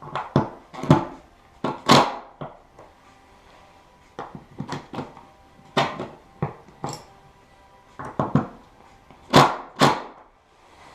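Irregular sharp knocks and clatters of wooden parts and hand tools being handled and set down, about fifteen strikes with pauses between them.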